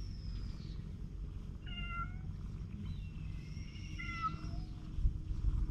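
Domestic cat meowing twice: a short meow about two seconds in, then a longer one that falls away at its end. Underneath is a low rumble that gets louder near the end.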